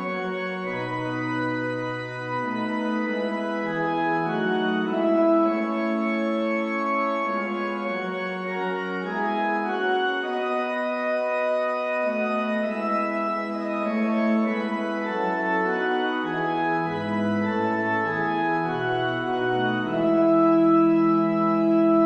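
Organ music: slow, sustained chords that change every second or two, with the low bass notes dropping out for a long stretch in the middle and coming back near the end.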